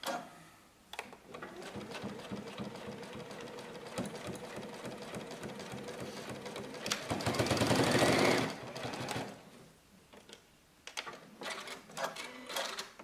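Juki UX8 computerized sewing machine stitching through a thick stack of folded fabric layers. It runs steadily, speeds up with a rising whine about seven seconds in, and stops at about nine and a half seconds. A few light clicks from handling the fabric follow.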